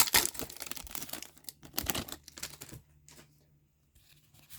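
Hockey cards and their pack wrapper being handled: quick crinkling and light clicks that die away about three seconds in, leaving only a faint low hum.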